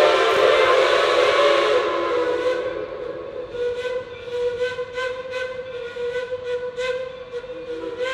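Geared steam locomotive's chime whistle blowing loud over steam hiss, fading after about two seconds. It then settles into a quieter steady whistle tone over a regular beat of exhaust chuffs, about two to three a second, as the locomotive works.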